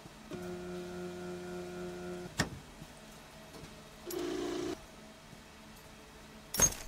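A series of animation sound effects: a steady humming tone for about two seconds, then a click, a short buzz about four seconds in, and a sharp, louder click near the end.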